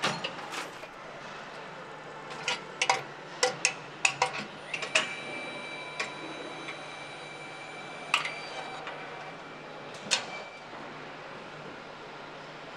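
A series of about a dozen sharp metallic clicks and clanks as parts and clamps are handled on a car-body assembly fixture, over a steady machine hum. A high steady tone sounds for about four seconds in the middle.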